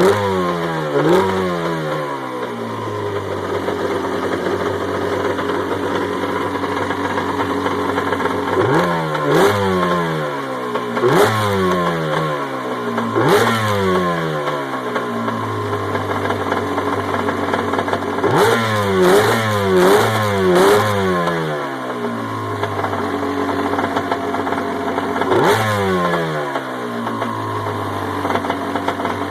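Yamaha Wave Blaster's 701 two-stroke twin running out of the water, idling a little high and blipped repeatedly. Each blip revs it up quickly and lets it fall back to idle, with a quick cluster of blips in the middle. It picks up cleanly on a freshly rebuilt carburettor with no bog.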